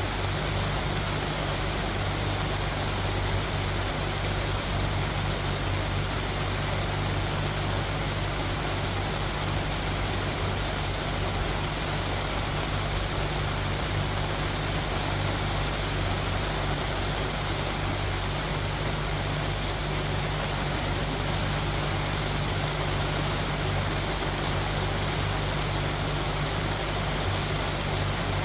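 Steady rain falling, an even hiss that does not change, over a steady low rumble.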